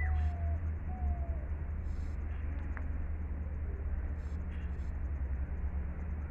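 Outdoor yard ambience dominated by a steady low rumble, with a few short falling bird calls in the first second and a half.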